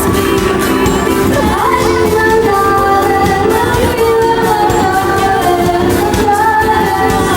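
Background pop music with a singing voice.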